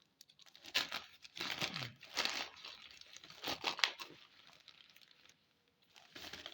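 Packaging of a small microphone being opened by hand: irregular crinkling, rustling and tearing in short bursts, dying down for a moment before starting again near the end.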